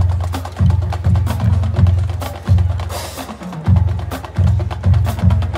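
Marching band percussion: deep booming hits about every half-second to second, each dying away, with sharp clicks over them.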